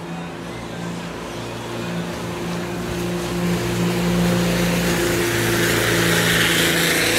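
Speedboat engine running at a steady pitch while the boat closes in and passes near, growing louder. The rush of its spray and wake rises over the last few seconds.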